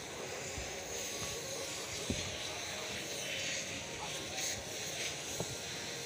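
Steady rushing background of distant highway traffic, with two soft knocks, one about two seconds in and one near the end.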